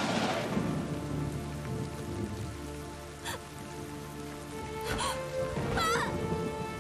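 Steady heavy rain falling, under sustained, sombre score music with long held notes. Around five to six seconds in, a short wavering high-pitched sound rises over the rain.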